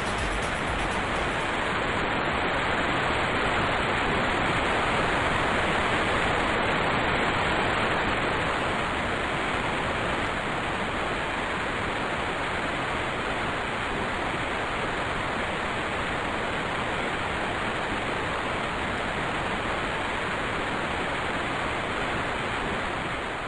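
Steady, even hiss of white noise like radio or television static, unbroken and without any tone or rhythm.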